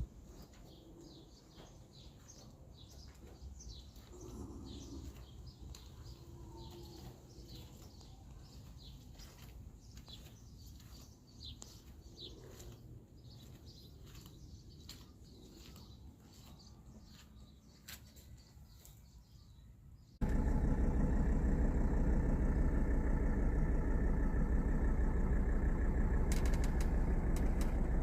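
Small birds chirping over a quiet background. About twenty seconds in, the 1980 Mercedes-Benz 300SD's turbocharged five-cylinder diesel cuts in suddenly and loud, running steadily at idle with an even low throb.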